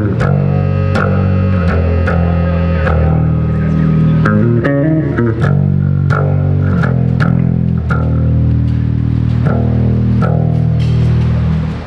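Amplified electric bass guitar played alone for a sound check, a run of low sustained notes changing every half second or so, breaking off just before the end.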